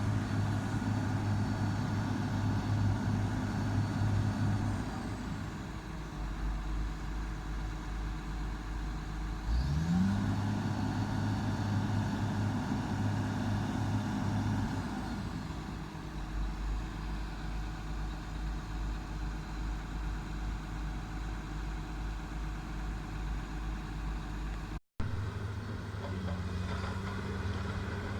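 Heavy earthmoving machine's diesel engine running steadily. It drops to a lower rumble after a few seconds, revs up sharply about ten seconds in, then eases back down to a lower steady run.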